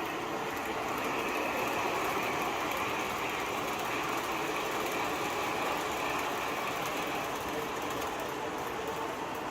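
MTH O-scale R-40 Slant model subway train running between stops: a steady rolling and motor noise from the model and its onboard subway sound, with a higher even whine from about a second in that fades out near seven seconds.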